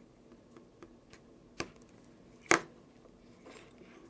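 Small clicks and ticks of thin wires and a hobby knife being handled on a cutting mat while insulation is worked off a wire. The sounds are mostly faint, with two sharp clicks about a second and a half in and about two and a half seconds in, the second louder.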